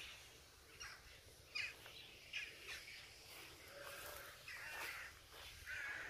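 Faint animal calls: a string of short, separate calls, the clearest near the end.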